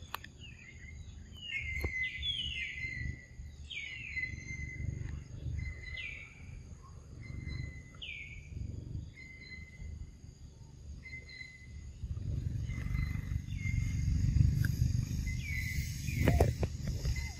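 A bird repeats a short whistled note that falls in pitch, every second or two, fading out after the first half. Under it runs a low rumble that grows louder in the second half, with faint steady high tones throughout.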